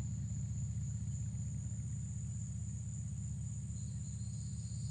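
Insects shrilling in one steady, high continuous tone, with a second, slightly lower insect chorus joining near the end, over a steady low rumble.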